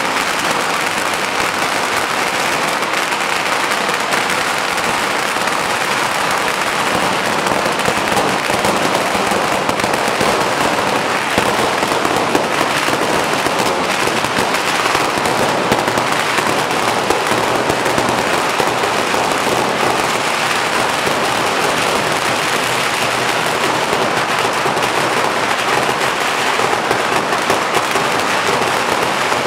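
A very long string of firecrackers (a Curaçao pagara) going off without a break: a dense, rapid crackle of small bangs that never lets up.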